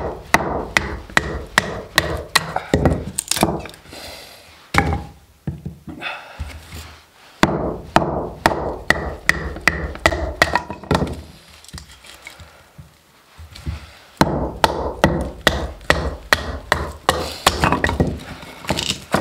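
Wooden baton striking the spine of a Bahco 2449 wrecking knife to split a birch billet standing on a wooden floor: sharp wooden knocks coming in four quick runs of blows with short pauses between.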